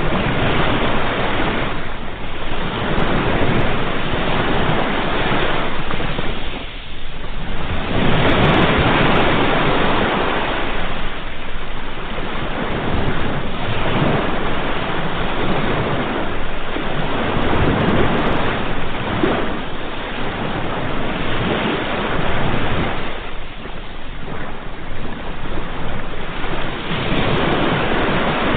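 Ocean waves breaking and washing up a shore, the surf swelling and ebbing every few seconds, with a short lull about seven seconds in and a longer one near the end.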